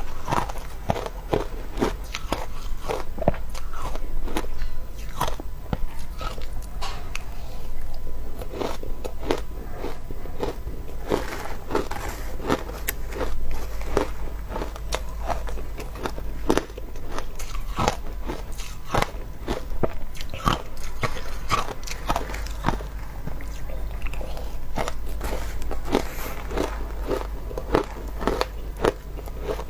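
Close-miked biting and chewing of crunchy shaved ice, a dense run of sharp, irregular crunches and cracks.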